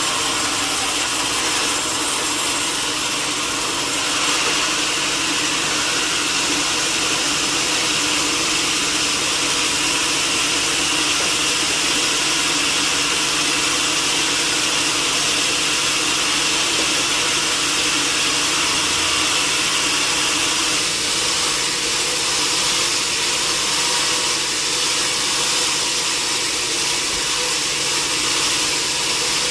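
Sawmill saw and its motor running steadily, cutting through timber with an unbroken, hissing whine.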